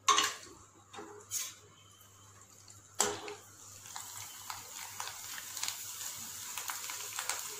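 Dried sabudana (sago) imarti wafers frying in hot oil in a kadhai. After a few small knocks, steady sizzling with fine crackling sets in about three seconds in and grows slightly louder as the wafers puff up.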